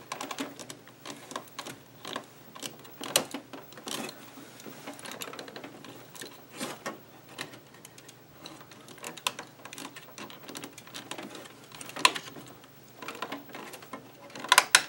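Plastic refillable ink cartridges of a continuous ink system being pressed down and clicking into their clips in an Epson 1400 printer's printhead carriage. The sound is a string of sharp plastic clicks and small rattles at irregular intervals, with a few louder snaps near the end.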